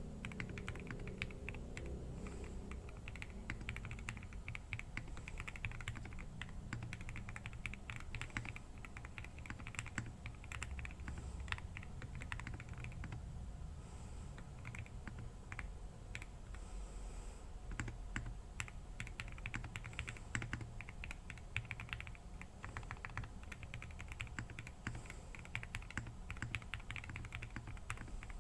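Continuous typing on a KBDfans TIGER 80 mechanical keyboard with lubed SP Star Meteor White linear switches, PC plate, and PBT Cherry-profile keycaps: a rapid, uneven run of keystrokes, easing briefly about halfway through.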